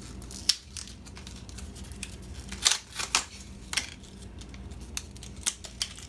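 Plastic packaging of a microSD memory card being opened and handled: scattered sharp clicks and crackles, the loudest about two and a half seconds in.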